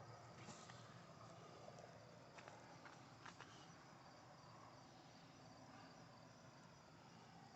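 Near silence: faint outdoor background hiss with a few light clicks.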